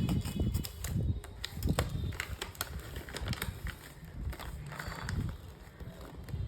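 Plastic pouch of raisins being handled: irregular crinkles and sharp clicks with dull low bumps of handling.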